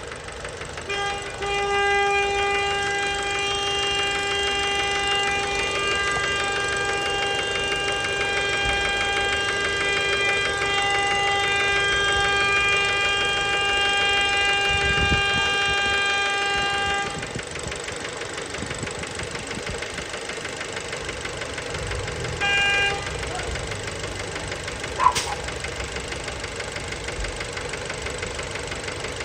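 Fiat Bravo 1.4 T-Jet engine idling with a steady knock, the sign of worn connecting-rod bearings. For the first two-thirds, and again briefly near the end, a loud steady horn-like tone sounds over it. A single sharp click comes near the end.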